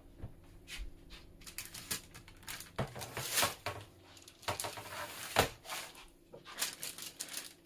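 Parchment paper rustling and crinkling in irregular strokes as hands pat and shift a sheet of rolled-out dough on a baking sheet, with two louder crinkles about three and a half and five and a half seconds in.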